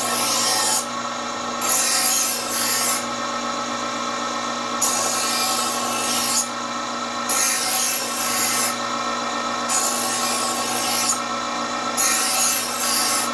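Electric Chef's Choice Diamond Hone Sharpener Model 100 running with a steady motor hum, as a dull straight-edge knife is drawn through its honing slot about six times; each pass grinds out a rasping hiss of about a second or more, with short pauses between passes.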